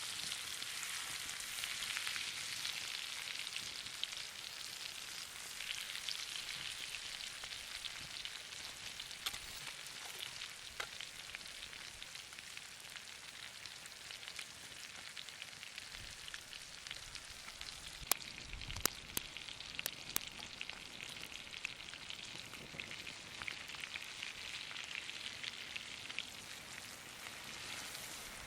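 T-bone steak frying in butter, a steady sizzle with fine crackling and a few sharp pops around eighteen to twenty seconds in.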